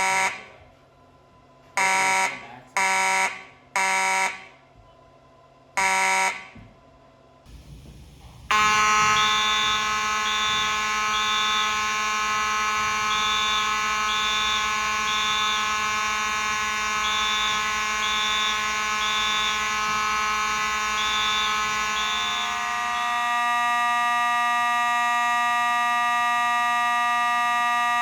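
Fire alarm horns. A Siemens U-HN-S17 horn sounds short blasts in groups of three (temporal-3 evacuation pattern). About eight seconds in, a Simplex 2903-9101 with 2901-9838 horn takes over with a steady continuous tone, a high three-pulse pattern repeating over it. Near the end the steady tone shifts to a different pitch as the grilled version of the Simplex horn sounds.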